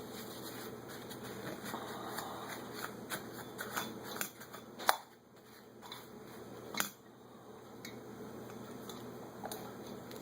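Small carburetor parts being handled on a workbench, with a run of light clicks and clinks and two sharper clicks about five and seven seconds in, over a steady background hum.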